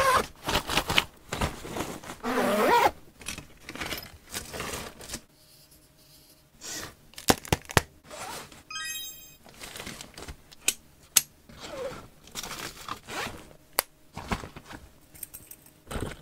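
Stationery and accessories being handled: plastic packaging crinkling, fabric bag rustling and scraping, and a scatter of light taps and clicks. About nine seconds in comes a quick run of evenly spaced clicks.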